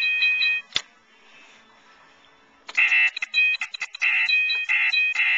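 Operation board game buzzer sounding in broken, stuttering bursts as the metal tweezers touch the metal rim of a cavity: the sign of a mistake. It cuts off with a sharp click under a second in, stays quiet for about two seconds, then buzzes again.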